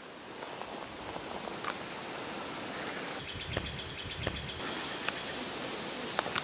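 Outdoor forest ambience: wind on the microphone and rustling of grass and leaves, with a few scattered sharp clicks, the loudest near the end, and a faint steady high buzz in the middle.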